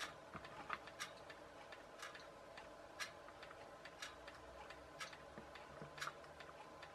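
A clock ticking quietly, one tick a second, with faint small clicks in between from a plastic toy boat hull being turned over in the hands.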